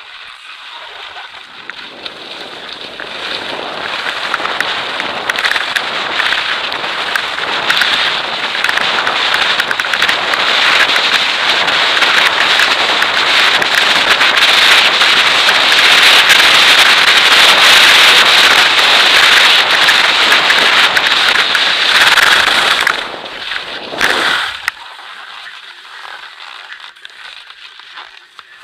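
Skis running fast down a packed snow slope: a dense rushing noise full of crackling scrapes from the ski edges and wind on the microphone, building louder as speed rises. It drops sharply a few seconds before the end as the skier slows, leaving a quieter crunching of skis on soft snow.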